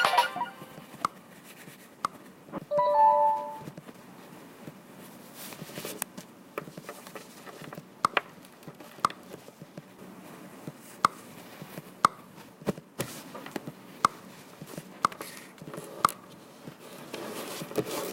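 A short two-note chime, a low tone followed by a higher one, about three seconds in, then faint scattered clicks over a low hiss.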